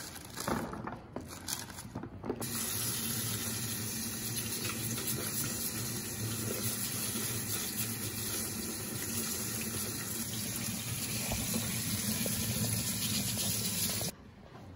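Kitchen faucet running into the sink as potatoes are scrubbed under it in a colander: a steady hiss of water that starts about two seconds in and stops suddenly shortly before the end. A few light knocks come before the water starts.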